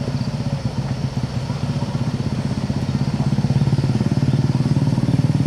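Diesel engine of a loaded light truck labouring under load as it creeps through mud, a low pulsing throb that grows louder about three seconds in.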